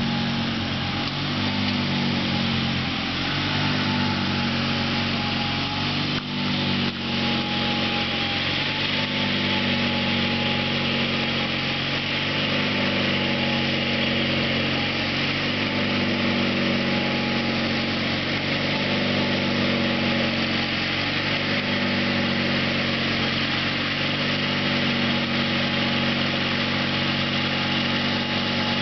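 A 1978 Sears GT/19.9 garden tractor's engine running steadily while it mows grass, with two brief dips in level about six and seven seconds in.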